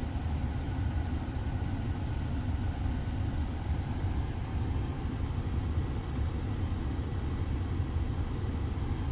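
Engine idling steadily, a low, even rumble.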